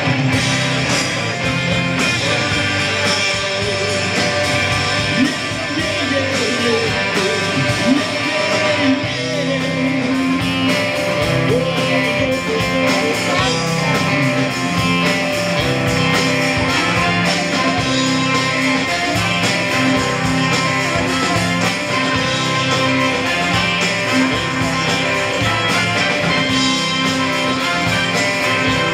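Live rock band playing: electric guitar, bass guitar and drum kit, loud and steady throughout.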